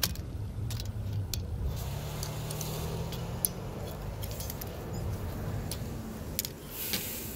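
Scattered light clicks and rattles of hands handling parts close to the microphone, over a steady low rumble.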